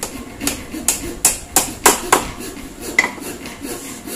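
Hammer driving a nail into a pallet-wood frame corner: a run of sharp metallic blows, about seven in the first two seconds, then one more knock about three seconds in.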